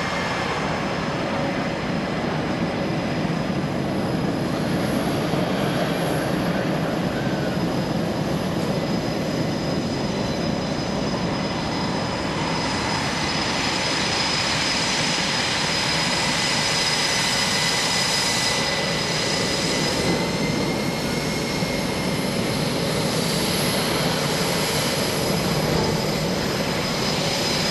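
Single turbofan engine of an L-39C Albatross jet trainer flying aerobatics overhead: a steady rushing jet noise with several high-pitched whine tones that drift slightly in pitch as the jet manoeuvres.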